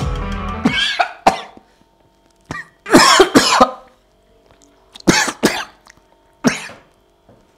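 A man coughing in a series of separate fits after gulping fish sauce straight. Background music stops just under a second in.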